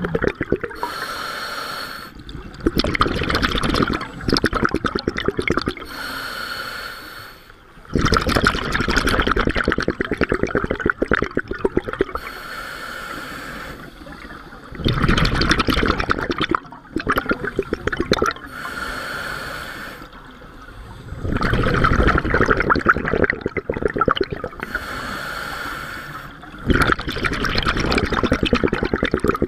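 A scuba diver breathing through a regulator, heard from the diver's own position, about five breaths. Each inhale is a short hiss with a whistling tone from the regulator, and each exhale is a longer, louder gurgling burst of bubbles.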